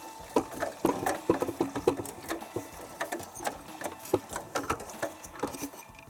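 Wet towels tumbling in the drum of a Samsung Ecobubble front-loading washing machine running with its door open, a quick irregular clatter of slaps, clicks and knocks.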